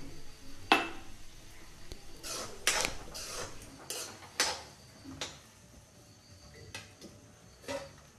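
Metal cooking utensil clinking and scraping against a cooking pan, as food is stirred and turned. The clinks are irregular and spaced out, the sharpest about a second in and around the middle.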